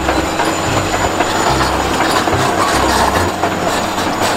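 Large Caterpillar crawler bulldozer at work: its diesel engine running under load with the clatter of its steel tracks as it pushes earth, a steady, dense noise.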